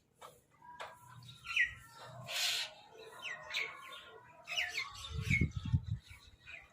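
Crows calling in a run of short, harsh calls and squawks, some rising or falling in pitch. There are a few low thuds about five seconds in.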